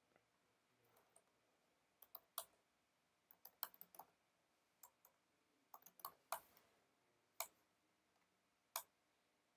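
Faint, scattered clicks of a computer keyboard and mouse: single keystrokes and short bursts of a few keys, with pauses between, in otherwise near silence.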